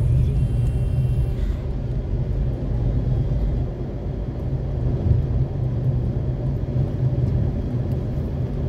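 Steady low rumble of a moving car's engine and tyres, heard from inside the cabin while driving at town speed.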